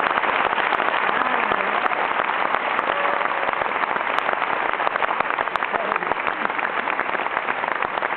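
Theatre audience applauding steadily: dense clapping from many hands.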